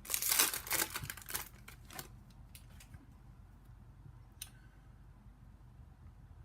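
Trading-card pack wrapper crinkling and tearing open for about two seconds, then quiet handling with a single sharp click about four seconds in.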